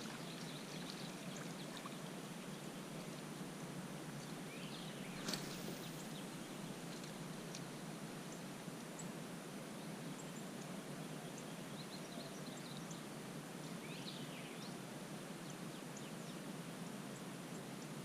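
Quiet outdoor pond ambience: a steady low hiss with a few faint bird chirps, and one brief sharp sound about five seconds in.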